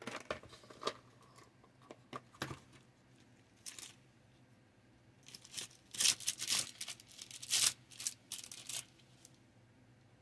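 Hands handling a clear plastic tool case while looking for tweezers: plastic clicking and rustling, with a cluster of louder crinkling scrapes and clatters in the middle.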